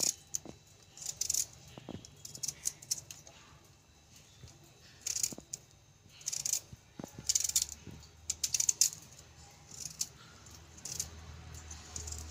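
Small kitchen knife slicing through a beetroot held in the hand, giving short crisp cutting sounds in irregular clusters every second or two.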